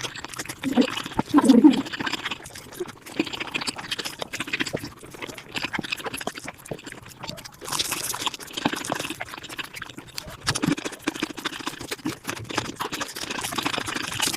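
Eating sounds sped up about five times: rapid chewing and mouth clicks packed close together, with short wet slurping bursts.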